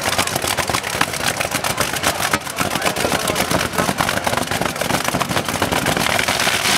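Modified pulling tractor's open-stack engine idling after a completed full pull, a loud rapid uneven crackle from the unmuffled exhaust.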